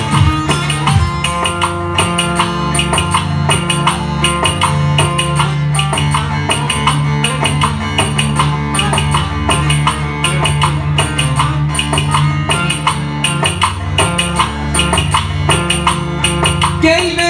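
Bağlama (long-necked saz) played fast over a steady drum and tambourine beat: an instrumental break in an Ankara-style oyun havası dance tune. A singing voice comes in near the end.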